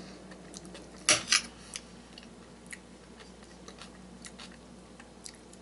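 A fork clinking and tapping against a plate while eating, with two louder clinks about a second in and scattered light clicks after, over a faint steady hum.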